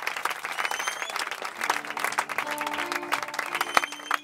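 Audience applauding. About halfway through, the applause thins and held notes from the band's amplified instruments come in.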